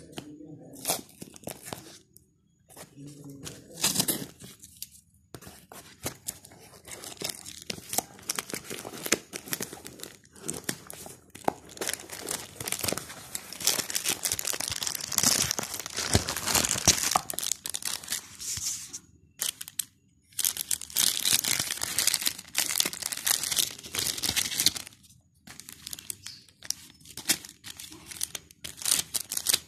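Plastic courier packaging being torn open and crumpled by hand, with crinkling and tearing noises in stretches broken by brief pauses, followed by handling of a clear plastic blister pack.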